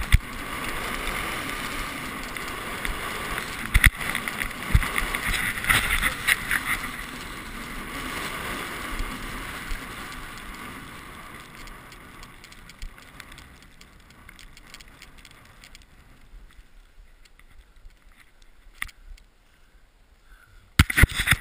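Skis hissing over snow with wind rushing on the camera's microphone, louder through the first half and easing off later. A few loud knocks near the end.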